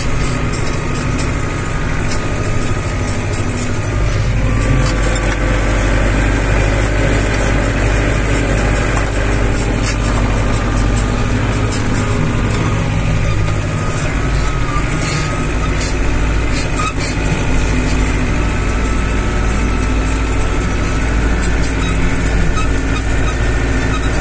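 Zetor 6340 tractor's diesel engine running steadily under load while pulling a plough through mud, heard from inside the cab, with small cab rattles and clicks.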